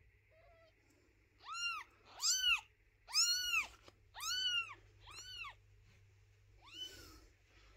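Newborn kitten mewing while being handled: six short, high-pitched cries, each rising and falling in pitch, about one a second.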